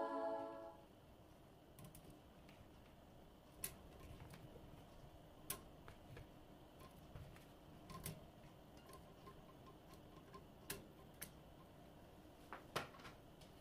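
Faint, scattered light clicks and taps at irregular intervals: peeled potato pieces being set onto a folding metal steamer basket in a cast-iron pan. A held music chord fades out in the first second.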